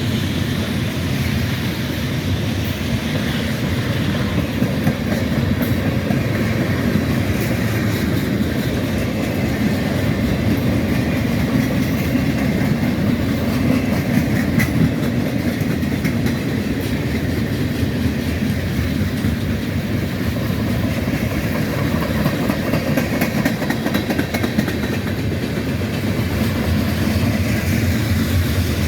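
Train cars rolling by, with a steady rumble of steel wheels on the rails and rapid clicking over the rail joints.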